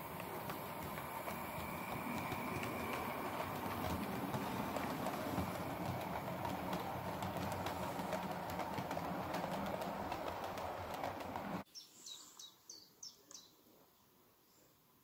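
Model train, a diesel locomotive with its coaches, running along the layout track: a steady clatter of wheels and motor with many small clicks from the rail joints. It cuts off suddenly about three-quarters of the way in, and a few short high chirps follow.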